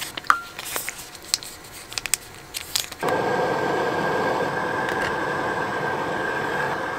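Crinkling of a plastic sauce packet and small clicks as sauce is poured into a glass bowl. About three seconds in, a steady hiss with a faint high whistle starts: a portable gas stove burner running under a pan.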